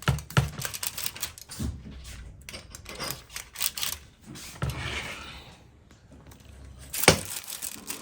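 Irregular clicks, taps and knocks of kitchen things being handled, with a brief hiss about five seconds in and one sharper knock about seven seconds in.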